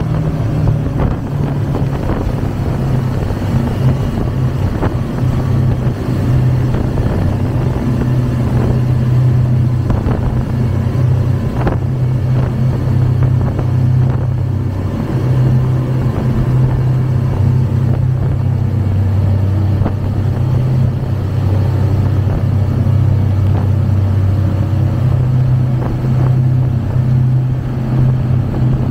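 Three Mercury 600 hp V12 Verado outboards running at speed. Their low, steady engine hum sits under the louder rush of wind and churning wake water, since the engines are incredibly quiet even at high speed.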